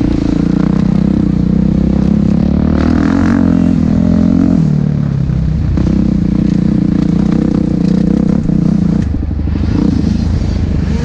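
Motocross bike engine running under throttle, heard close up from the rider's helmet camera; the engine eases off about five seconds in, picks back up, and drops off again near the end.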